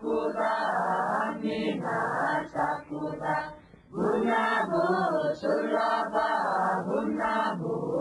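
Group of Bunun singers chanting a traditional hunting ritual song, sung before setting out to hunt to pray for a good catch. The chant breaks briefly about four seconds in, then resumes.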